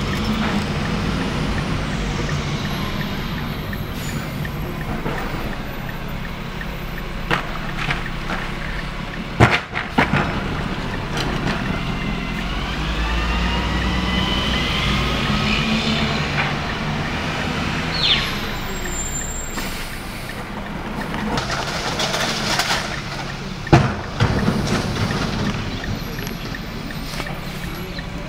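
Leach rear-loader garbage truck running as it moves along the street, its engine a steady low rumble, with air-brake hiss and a couple of sharp clunks from the truck body, heard from inside a following car.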